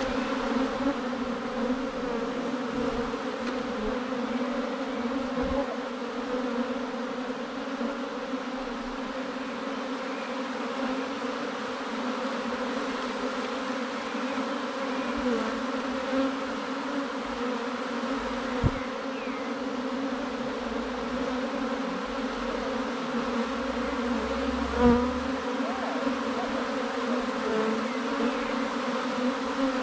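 Honeybee swarm buzzing steadily, a dense, even hum of many bees close by. A couple of brief knocks sound about two-thirds of the way through and again near the end.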